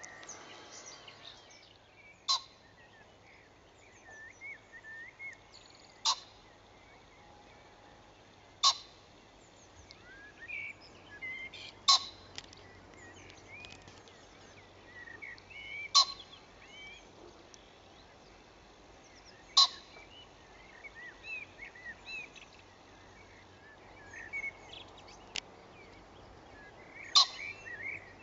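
Small birds chirping and singing in the background, with a short, sharp click every three to four seconds, about eight in all.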